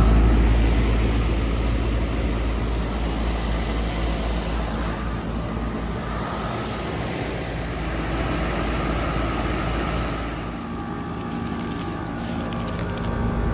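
Outdoor heat pump units running: a steady fan whoosh over a compressor hum.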